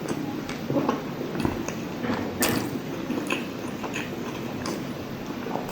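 Close-miked eating of soft, fatty soy-braised pork adobo with rice: wet, squishy chewing with many small mouth clicks, one sharper click about two and a half seconds in.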